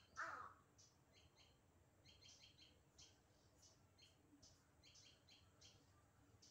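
Faint, short, high chirps of small birds, repeated irregularly throughout, after a brief harsh call right at the start.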